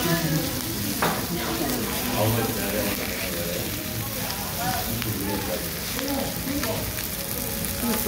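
Frozen pork belly slices sizzling steadily on a foil-lined grill pan, with a few sharp clicks of metal tongs as the slices are moved.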